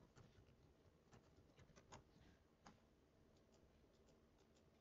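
Near silence with faint, scattered clicks of a computer mouse being used, the loudest about two seconds in.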